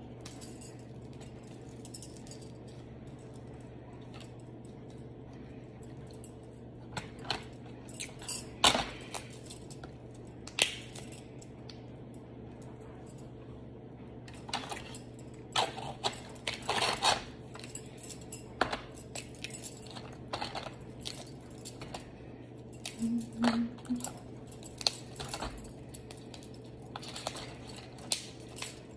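Crab legs being cracked and picked apart by gloved hands over crinkling aluminium foil, with metal bangle bracelets jangling and clinking. Scattered sharp cracks and clicks come in clusters, a few about a third of the way in and many more through the second half, over a faint steady hum.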